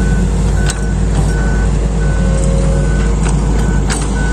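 A diesel excavator engine running steadily with its travel alarm beeping at an even pace, about three beeps every two seconds, while the machine tracks. A few short metallic clanks sound over it, twice near the start and once near the end.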